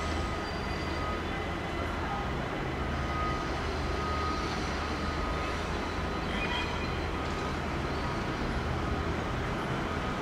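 ÖBB Cityjet class 4746 (Siemens Desiro ML) electric multiple unit pulling slowly into a platform. Its wheels make a steady rumble on the rails, with faint, thin electric whine tones that come and go.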